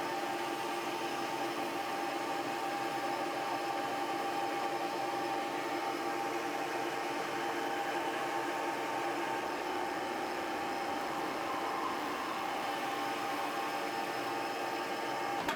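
Metal lathe taking a turning cut along a long, slender feed screw that is pressed against the cutter by a phenolic block standing in for a steady rest. A steady machining noise with a sustained whining tone, cut off suddenly at the end.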